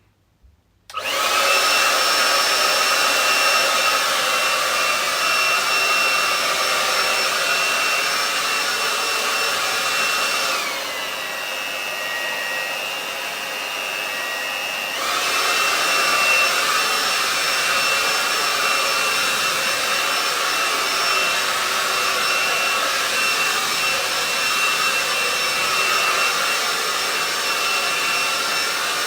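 Hair dryer switched on about a second in and running steadily with a whirring whine. For about four seconds in the middle, its pitch drops and the hiss thins before it comes back up to full speed.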